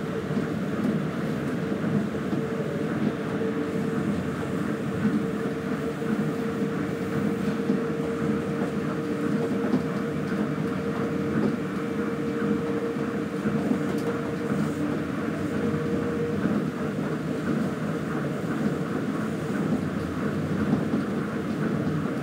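Tokyo Monorail train running along the line, heard from inside the car: a steady rumble from its rubber tyres on the guideway beam, with a steady hum that stops about 16 seconds in.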